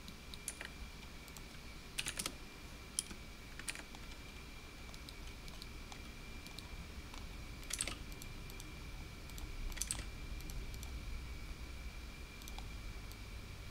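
Computer keyboard keys and mouse buttons clicking in scattered short clusters, over a faint steady high-pitched whine.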